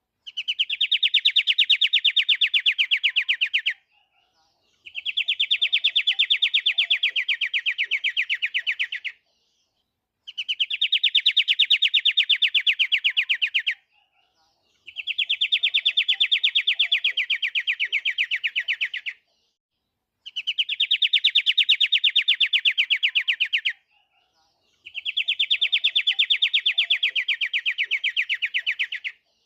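Pied triller (kapasan kemiri) singing a fast trill of evenly repeated high notes. It comes in bouts of about four seconds, separated by pauses of about a second, six times over.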